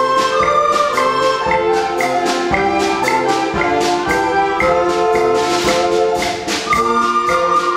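A recorder ensemble playing a tune in held notes and several parts, over a steady beat of sharp percussive clicks.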